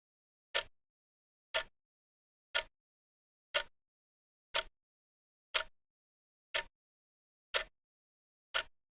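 Countdown timer's clock tick, nine sharp ticks evenly one a second.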